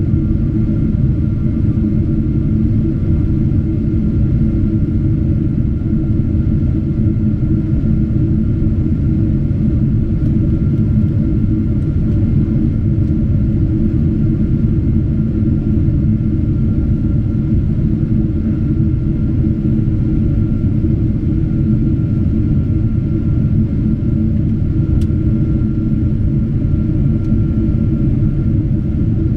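Steady low cabin drone of a Boeing 777-200 airliner in flight, heard inside the passenger cabin, with a faint steady whine above it.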